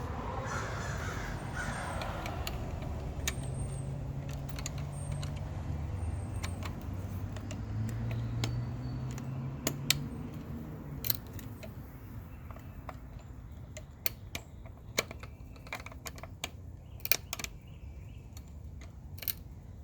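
Small sharp clicks and clinks of metal parts being handled while a light fixture's mounting screw is fitted and tightened, scattered through the second half, over a low steady hum in the first half.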